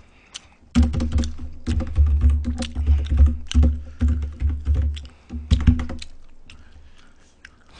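Fast typing on a computer keyboard: a dense run of irregular clicks with heavy low thuds that stops about six seconds in.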